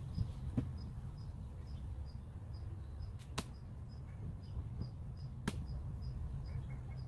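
A few sharp wooden clicks and knocks as beehive frames are pried loose and lifted from a hive box, the loudest two about halfway through and two seconds later, over outdoor ambience with a small high chirp repeating steadily about twice a second.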